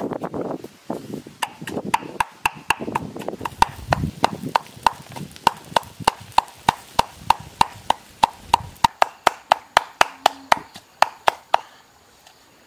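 Pestle pounding red chillies in a clay mortar: a steady run of knocks, about three a second, each with a short ring, stopping shortly before the end.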